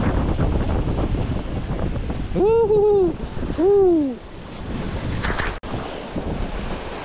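Strong wind buffeting the microphone over the wash of sea waves. A bit past two seconds in come two short arched pitched calls, about a second apart, that sound like a voice.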